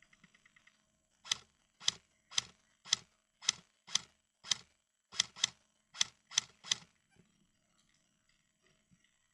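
Airsoft gun firing a string of about a dozen single shots, roughly two a second, each a sharp crack with a short tail, two of them fired in quick succession near the middle.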